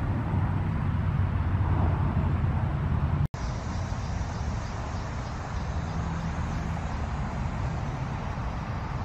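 Steady low outdoor rumble with no clear single source, broken by a split-second dropout about three seconds in where two recordings are joined.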